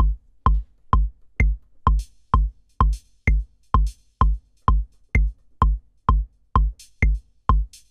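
A step-sequenced drum machine loop plays a four-on-the-floor kick drum at about two beats a second, with a metronome click on each beat. A few brighter, higher percussion hits fall between the kicks.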